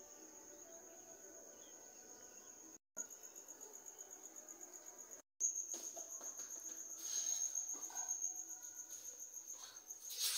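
Crickets trilling in a steady, high, pulsing tone, growing louder after about five seconds. The sound cuts out briefly twice, and faint knocks and rustles come through in the second half.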